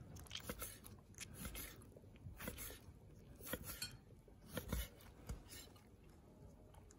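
Kitchen knife slicing octopus into thin pieces, the blade tapping faintly on a plastic cutting board at an uneven pace, about one or two taps a second.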